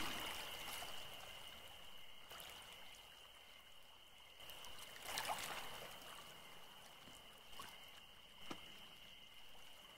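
Faint lakeside water ambience at night: soft lapping and trickling of lake water, with a thin steady high tone throughout and a few small soft drips or knocks around the middle and near the end.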